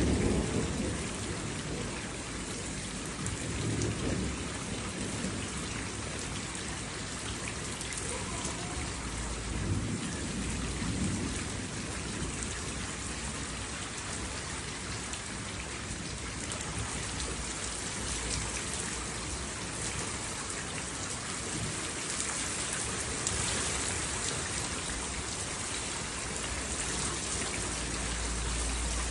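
Steady rain falling in an even hiss, with low rumbles of thunder swelling a few times, around four seconds in and again about ten seconds in.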